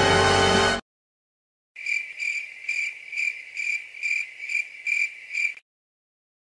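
The held last chord of a 'dun dun dunnn' dramatic music sting cuts off abruptly under a second in. After a short silence comes a stock crickets sound effect: a high chirp repeating about two and a half times a second for about four seconds, then stopping.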